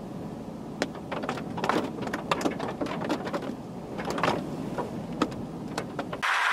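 Light rain: scattered drops ticking irregularly against a hard surface over a steady rushing background.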